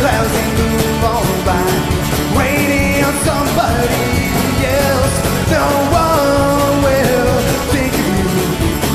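Live Americana rock-and-roll band playing a song with a steady beat, and melody lines that slide in pitch.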